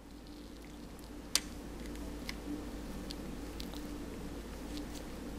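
Small clicks and light scraping of a miniature flat screwdriver pressing a spring-bar pin into a Casio G-Shock's resin band and case slot. One sharper click comes about a second and a half in, with a few fainter ones after.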